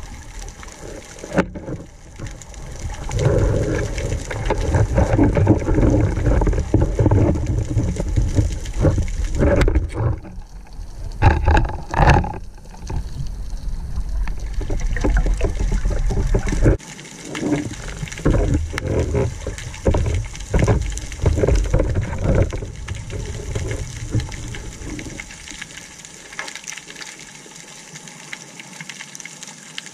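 Muffled underwater noise heard through a camera housing: water rushing and swirling, with knocks, rubs and scrapes against the housing while a caught octopus is handled, easing to a quieter steady hiss near the end.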